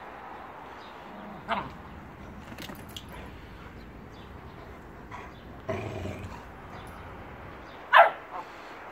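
Bernese mountain dogs at play, giving a few short barks; the loudest comes near the end.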